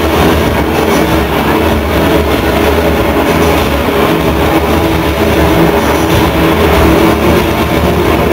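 Loud live industrial rock band music: a dense, distorted droning wall of sound with steady low tones and no clear beat.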